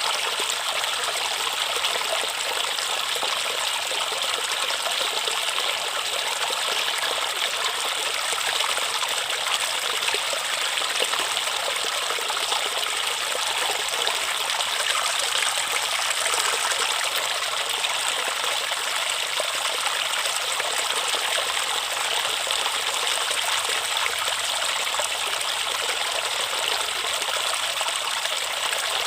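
River water flowing steadily: an even, unbroken sound of running water, bright and with little deep rumble.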